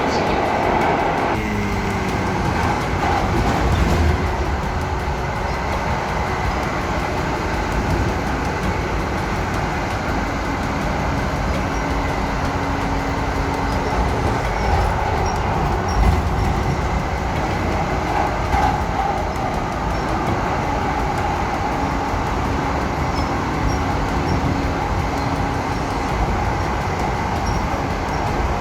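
Edmonton LRT light-rail train running on its track, a steady rumble with a brief falling tone about a second in and faint steady whines coming and going.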